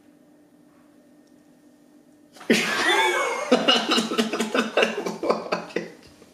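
After a quiet moment with only a faint steady hum, a sudden burst of loud laughter from a man and a woman breaks in about two and a half seconds in, sliding up and down in pitch at first, then going on in quick pulses before fading near the end.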